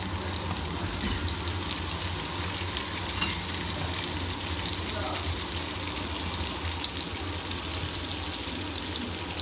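Slices of raw duck foie gras sizzling and crackling steadily as they sear in a hot frying pan, with one sharp tick about three seconds in.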